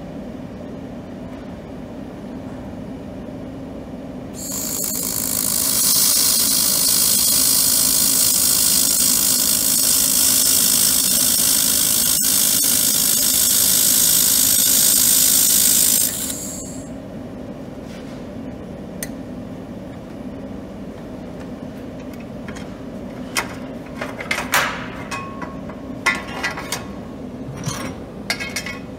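Handheld laser welder welding 2 mm steel: a loud, even hiss starts about four seconds in and cuts off sharply some twelve seconds later, over a steady low machine hum. Near the end come a few sharp clinks of the metal parts being handled.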